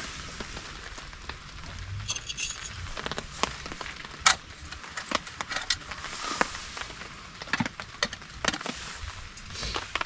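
Irregular drips and taps of light rain on a tarp overhead, with a brief metallic clink about two seconds in.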